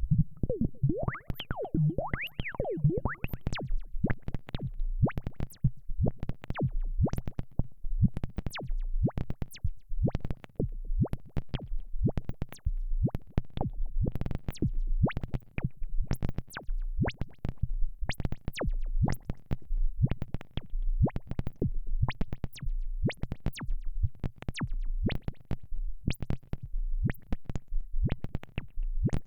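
Arturia Modular V3 software modular synthesizer playing a fast sequenced pattern of short, percussive notes, several a second, over a repeating low bass pulse. Sliding pitch sweeps come in the first few seconds.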